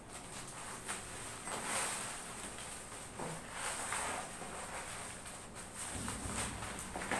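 Scissors cutting through a cardboard box, several short scratchy cuts, with a plastic courier bag rustling.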